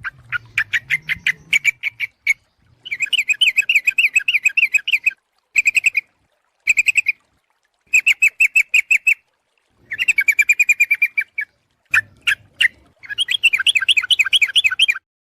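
Yellow-vented bulbul (trucuk) calling: bursts of rapid, chattering notes, each burst lasting from half a second to about two seconds, with short pauses between them. It is a lure call, the female calling the male, used to draw wild birds in.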